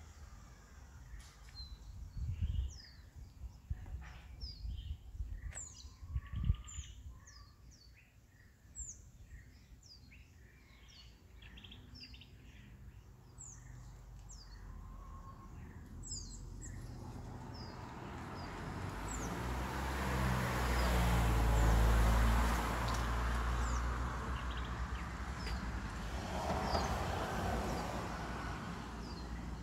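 Wild birds chirping repeatedly, many short high chirps. In the second half a rushing noise with a low rumble swells, loudest about two-thirds through, then eases off.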